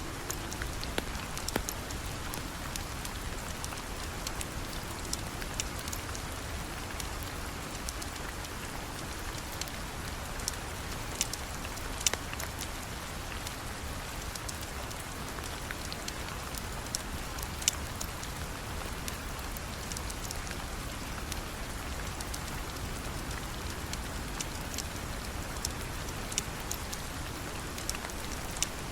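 Steady rain, with scattered sharp ticks and pops throughout, a few louder than the rest.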